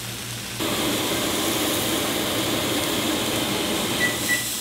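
Egg whites and turkey sausage patties frying in nonstick pans, a steady sizzle that gets louder about half a second in, over a low steady hum.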